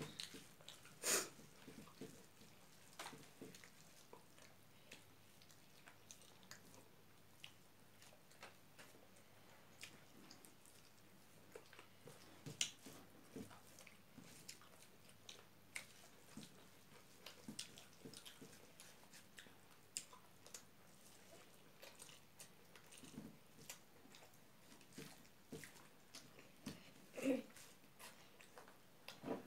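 Faint eating sounds: fingers working rice on plates and mouths chewing, heard as scattered soft clicks and taps, with a few louder ones about a second in, around the middle and near the end.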